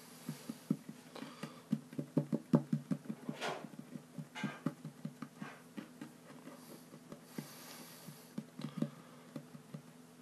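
Fingertips patting and pressing a sheet of play dough flat on a wooden table: rapid soft taps, several a second, with a few brief swishes of hands sliding over the tabletop. The tapping is thickest in the first half and thins out later.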